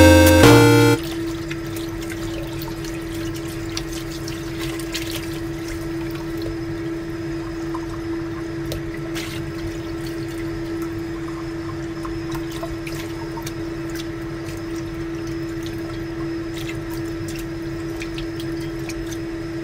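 Tap water running into a bowl in a stainless steel sink while hands rinse and handle soaked black fungus, with small splashes and a steady hum underneath. Music cuts off about a second in.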